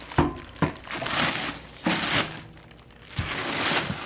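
Unpacking grinder parts: hard pieces knocking down onto a surface about four times, with packaging rustling between the knocks.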